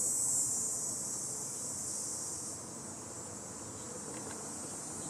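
Cicadas singing: a steady, high-pitched buzz that drops in level about halfway through.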